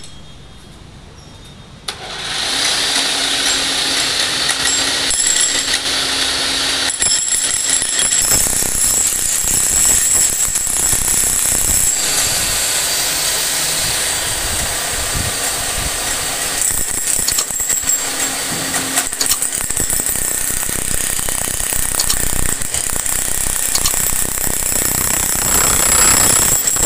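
Handheld electric demolition hammer chipping high spots off a concrete wall: a loud, continuous hammering rattle of the bit against concrete, with a steady high ringing. It starts suddenly about two seconds in and goes on without a break.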